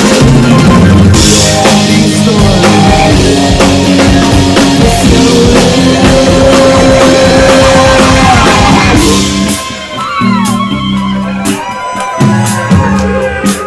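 Live rock band playing: drums, electric cello bass, electric guitar and electric keyboards. About nine seconds in, the full band thins out to drum hits and bass notes with gliding high notes over them.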